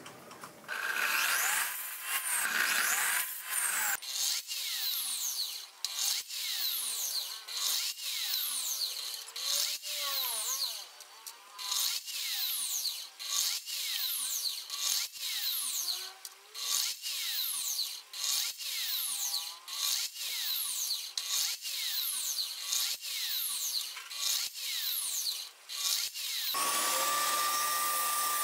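Miter saw making a rapid series of short cuts through small wooden pieces, about one a second, each with a sharp start and a falling whine as the blade winds down. Near the end this gives way to a table saw motor running with a steady whine.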